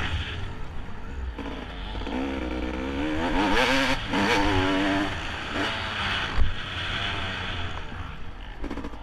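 Motocross dirt bike engine heard close up from the bike, revving up and dropping back several times as the throttle is worked over the jumps and turns. A single sharp knock about six seconds in.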